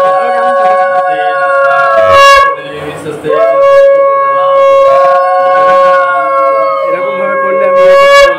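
Conch shell (shankha) blown in two long, steady blasts, with a short break for breath about two and a half seconds in.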